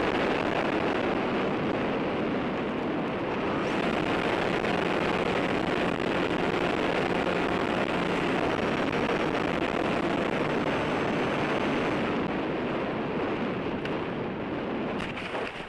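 Steady rushing wind noise on a microphone riding aboard an RC model plane in flight, cutting off suddenly at the very end.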